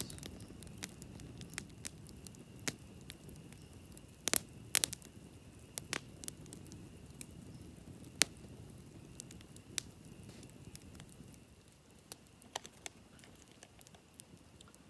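Wood campfire crackling, with sharp pops from the burning sticks scattered through and a low rustle of flame that quietens near the end.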